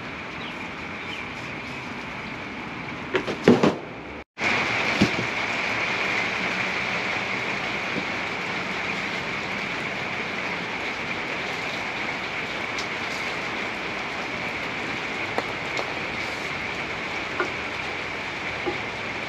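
Steady hiss-like noise with a few knocks just before it drops out briefly about four seconds in, then light clicks now and then.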